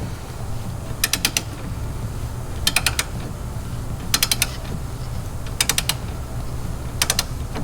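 Ratchet of a socket-drive wrench clicking in short runs of three or four clicks, about every one and a half seconds, as the handle is swung back between tightening strokes on a bolt. A steady low hum runs underneath.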